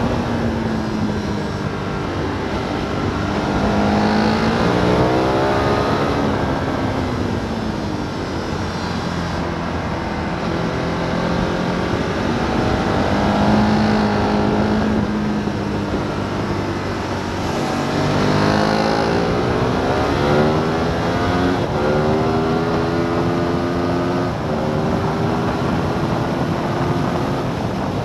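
Sport motorcycle engine at racing speed, heard from on board: the engine note repeatedly climbs in pitch under hard acceleration and drops back at each gear change or on braking for corners, over a steady rush of wind.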